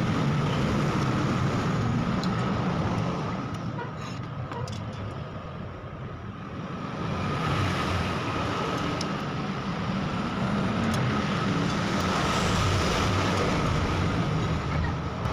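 Steady background noise of road traffic, with a few faint clicks as the drill stand's steel column is handled and fitted into its base.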